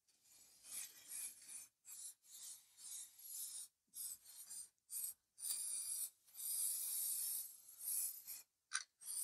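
Aerosol spray-paint can hissing in a series of short bursts, the bursts getting longer in the second half.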